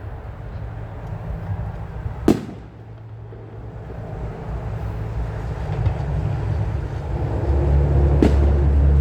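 Two firework bursts going off, single sharp bangs about six seconds apart, over a low rumble that grows louder through the second half.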